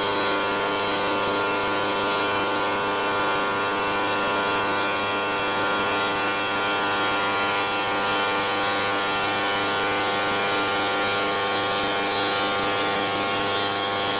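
CNC stone router machining quartz stone, its spindle running at steady speed: a constant machine whine with several fixed tones over a steady noise, unchanging throughout.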